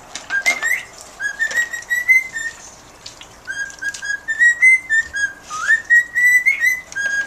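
Pet bird whistling a rapid run of short notes, some sliding upward, with a brief pause about three seconds in.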